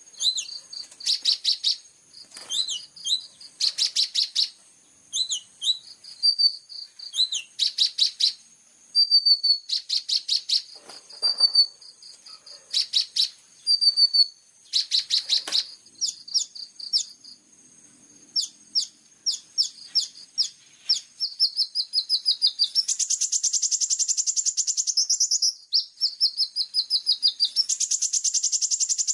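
A small songbird singing high-pitched sharp chirps mixed with short fast buzzy runs of notes, then two longer rapid trills, one about 23 seconds in and one near the end.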